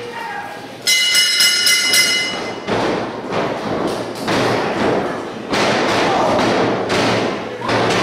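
A wrestling ring bell rung rapidly for about a second and a half, signalling the start of the match. Then loud thuds of wrestlers brawling on the ring, coming in several heavy stretches.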